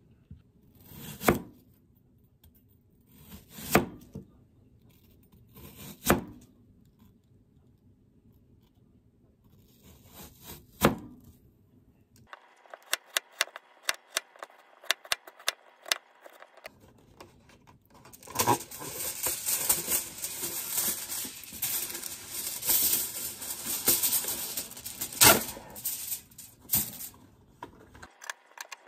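A kitchen knife chopping through apple onto a plastic cutting board: a few sharp knocks several seconds apart, then a run of light clicks. About halfway through, loud crinkling and rustling as a sheet of tray liner is pulled from its box and spread over a metal baking tray.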